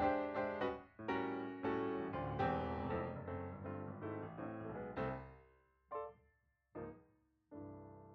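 Background piano music: a run of struck notes and chords that thins out after about five seconds into a few separate chords, then one last chord left to ring and fade.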